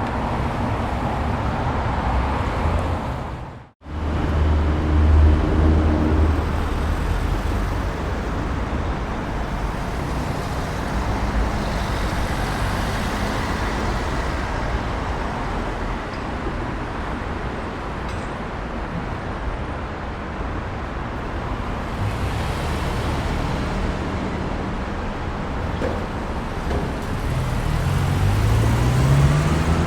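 Street traffic: a steady roar of passing cars and tyre noise, with low engine rumble from heavier vehicles. About 4 s in, the sound drops out for a moment as one recording cuts to the next. Near the end, an engine's pitch rises as a vehicle accelerates.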